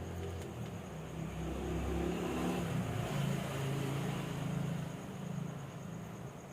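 Engine of a passing motor vehicle, its low drone growing louder through the middle and then fading away.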